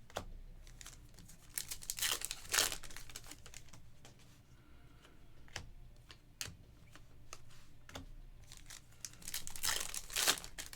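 Foil trading-card pack wrapper crinkling and tearing open, in two bursts about two seconds in and again near the end, with scattered light clicks between.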